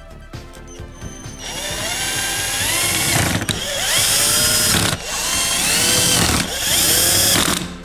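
A HEMUYOU cordless drill-driver driving the screws back into an angle grinder's gear-head cover: four runs of the motor of a second or two each, the whine climbing in pitch as each run starts, then stopping.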